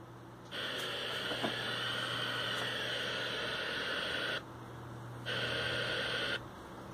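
FM static hiss from a Pioneer DEH-2250UB car stereo's tuner, sitting on empty frequencies at the bottom of the FM band, over a steady low hum. The hiss starts about half a second in, cuts out for about a second a little past four seconds in as the frequency is stepped, then returns for another second.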